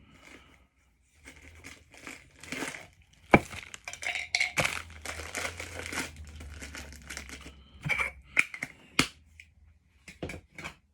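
Plastic packaging crinkling and rustling as it is handled by hand, with irregular rustles and a few sharp clicks.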